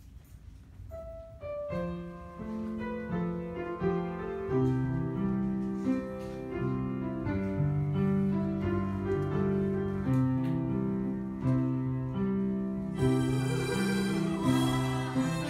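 Hymn accompaniment: after a single note, slow sustained chords play as an introduction. About thirteen seconds in, a group of harmonicas comes in together, playing the tune over them.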